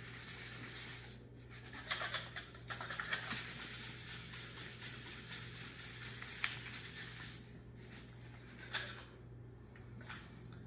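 A lidded container of coon-striped shrimp in rock salt, cure and distilled water being shaken by hand to mix and activate the cure and dye: a faint swishing, rattling noise with scattered clicks that dies away after about eight seconds. A steady low hum runs underneath.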